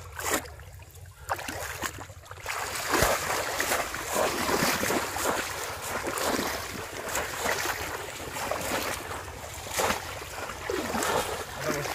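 Shallow water splashing and churning as bamboo polo fish traps are plunged into it again and again and people wade through. It grows loud about two and a half seconds in and keeps surging.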